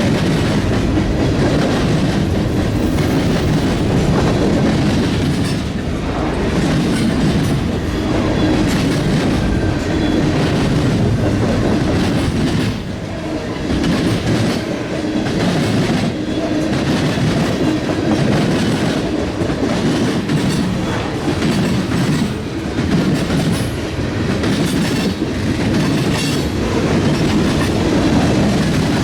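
Freight train cars rolling past close by: a steady heavy rumble with wheels clicking rhythmically over the rails.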